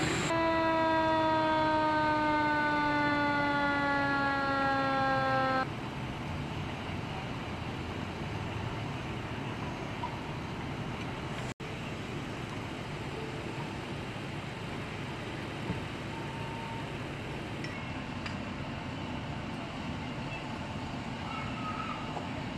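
An emergency vehicle siren sounding one long, slowly falling tone for about five seconds, then cutting off abruptly. Steady background noise follows.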